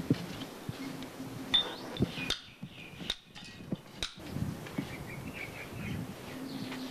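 Outdoor background with scattered short bird chirps and a few light knocks or taps. The high sounds drop away for a moment about halfway through.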